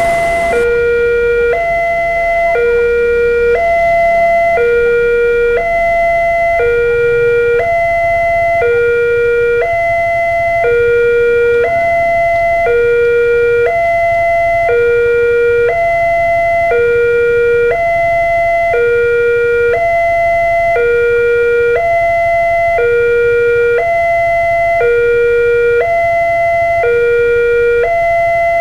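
Railway level-crossing warning alarm sounding from the loudspeaker on the crossbuck: an electronic two-tone ding-dong, a higher and a lower tone alternating about once a second, warning that a train is approaching.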